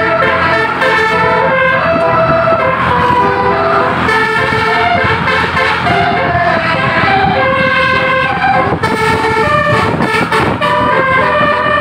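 Basuri multi-tone horn playing a melody: a run of loud, steady horn notes that step from one pitch to the next two or three times a second.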